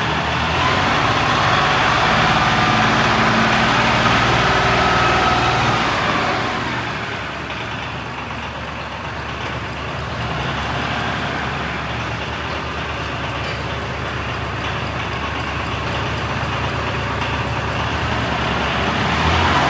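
1995 Ford 1715 loader tractor's three-cylinder diesel engine running as the tractor is driven, loud at first, fading from about seven seconds in as it moves off, then building again toward the end as it comes back.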